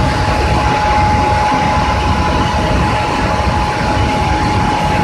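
Smeral LZK 1000 mechanical hot forging press running idle, its electric drive motor and flywheel spinning with a steady rumble and a constant high whine; no press strokes are heard.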